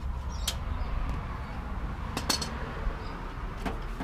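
A few short, sharp metallic clicks and clinks, three or four spread out, as hand tools knock against the metal compressor box and its fittings, over a low steady rumble.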